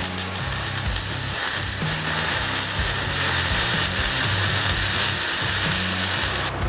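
Electric arc welding on steel: a steady crackling hiss of the arc that stops just before the end, with background rock music under it.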